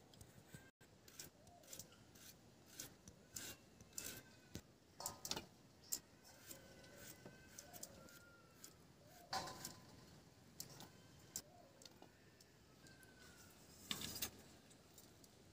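Raw papaya being cut on a bonti, the curved floor-mounted blade: soft, irregular scraping and slicing clicks as the fruit is drawn against the blade. A louder clatter comes near the end.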